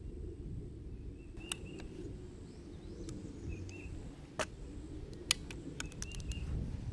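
Outdoor ambience: a low steady rumble with faint short bird chirps and a few sharp clicks, the loudest about four and a half seconds in and a quick cluster near the end. No shot is fired.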